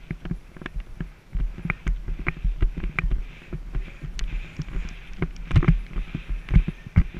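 Horse cantering on grass, heard from a helmet-mounted camera: dull hoofbeat thuds in an uneven rhythm, mixed with sharp clicks and knocks.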